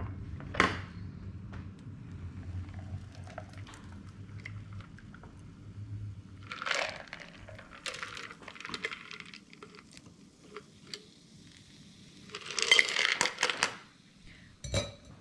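Cocktail shaker and ice clinking as the shaken drink is opened and poured into a rocks glass over ice, with scattered light clicks and a louder clattering stretch near the end.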